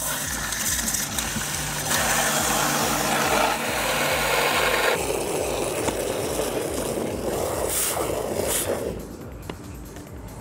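Garden hose spray nozzle spraying water into a plastic 5-gallon bucket, a steady hiss and splash as it fills with soapy water. About five seconds in the sound turns lower and duller as foam builds in the bucket, then fades out near the end.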